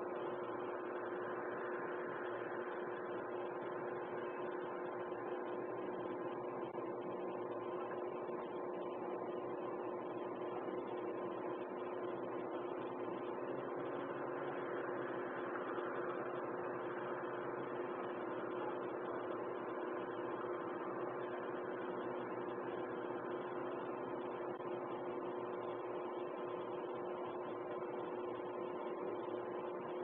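Steady hum with a few held tones over an even hiss, the hiss swelling and easing slowly a couple of times.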